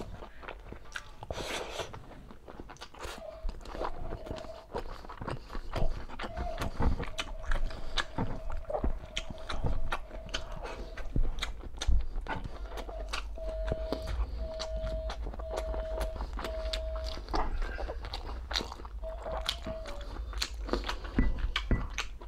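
Close-up mukbang eating sounds: a person chewing and biting soft braised pork and rice, with many small wet mouth clicks. Behind it, a thin steady tone runs for several seconds and later comes as four short beeps in a row, then two more.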